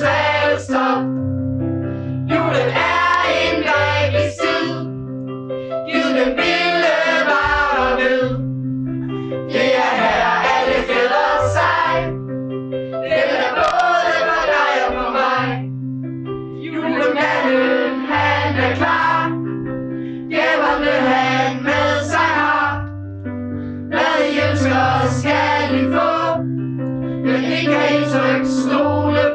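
A group of children's and adults' voices singing a song together in phrases of about two seconds, over sustained instrumental accompaniment.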